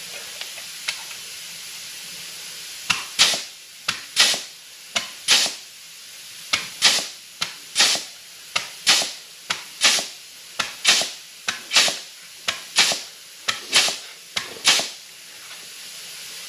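Offset (joggle) flanging tool crimping a stepped edge into a sheet-metal patch. About a dozen strokes come roughly one a second, starting about three seconds in, each a sharp snap followed by a short hiss, over a steady background hiss.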